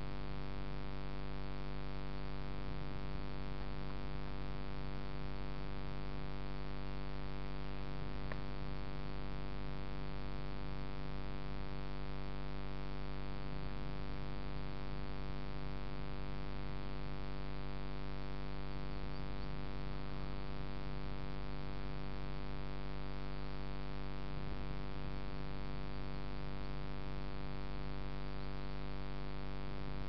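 A steady electrical hum with a stack of overtones, unchanging throughout.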